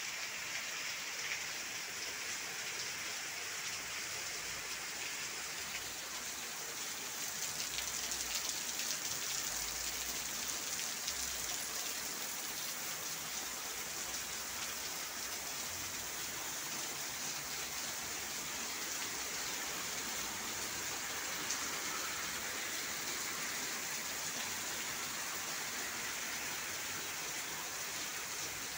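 Steady rain falling, an even hiss with no break. About eight seconds in it swells slightly, with a faint low rumble under it for a few seconds.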